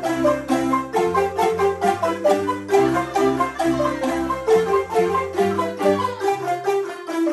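An ensemble of wooden marimbas with pipe resonators, played with mallets by a group of students, in a fast, rhythmic piece of interlocking parts over low bass notes. The bass drops out near the end.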